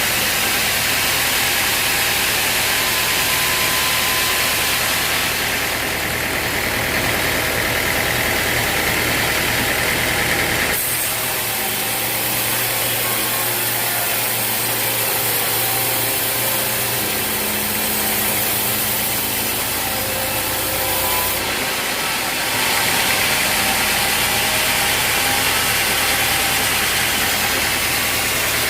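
An engine running steadily under a constant high hiss. The sound changes abruptly about 11 seconds in and again at about 22 seconds.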